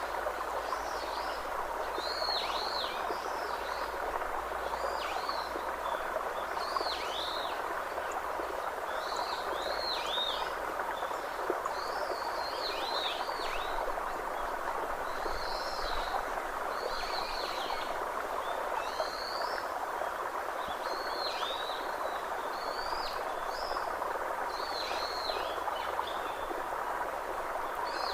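A songbird repeating short, high, arching notes every second or two over a steady rushing background noise.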